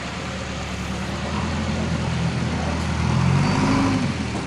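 JCB backhoe loader's diesel engine running, revving up about three seconds in and easing back just before the end.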